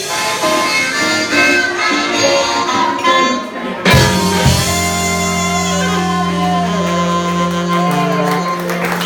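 Live blues band playing the song's ending: lead licks over the band, then a final hit about four seconds in and a long held closing chord.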